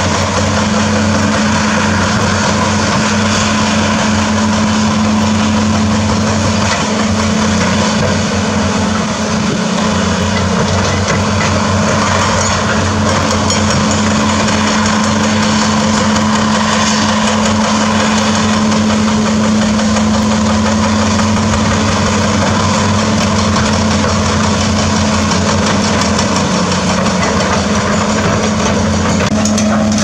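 Diesel engines of heavy earthmoving machines (large crawler excavators and a bulldozer) running steadily, a loud constant drone that holds one pitch throughout.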